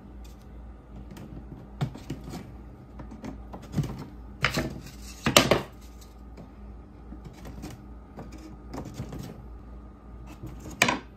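Wooden bottom bars of beehive frames being set by hand onto the frame end bars in a wooden assembly jig, wood knocking and clacking on wood. Scattered light knocks, the loudest two about halfway through and another near the end.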